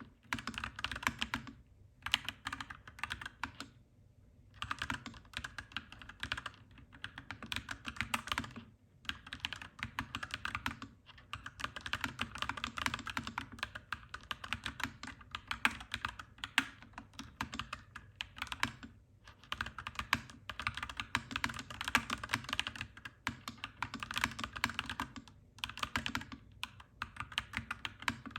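Clacky mechanical keyboard being typed on in fast runs of keystrokes, with short pauses between the runs.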